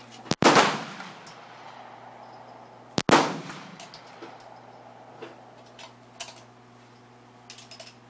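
Two shots from a 9mm handgun, the first less than half a second in and the second about three seconds in, each followed by a short echo.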